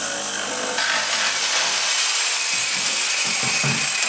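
Corded jigsaw sawing through plywood, running steadily as it finishes cutting out a circle, with some rough rattling of the blade in the wood over the last couple of seconds.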